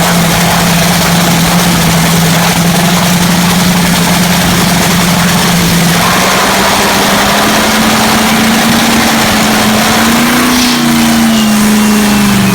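Top fuel funny car's supercharged, nitromethane-burning V8 running very loud at a steady high idle during a warm-up. Its pitch steps up slightly about halfway and swells briefly near the end.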